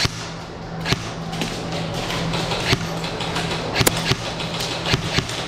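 Airsoft gun firing single shots: about seven sharp cracks at irregular intervals, the loudest a little under four seconds in.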